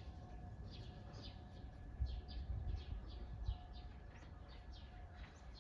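Birds chirping: many short, falling chirps, several a second, over a low rumble.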